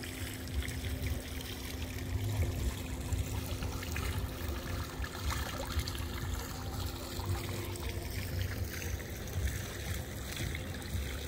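Fountain water trickling and splashing as a steady noise, over a low fluctuating rumble on the microphone and a steady low hum.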